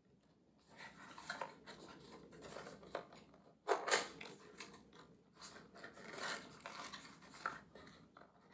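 A small cardboard product box being opened by hand: faint irregular scraping, rustling and sharp clicks of packaging, with the sharpest scrape about four seconds in.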